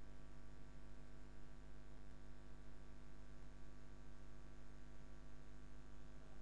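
Steady electrical mains hum with a faint hiss.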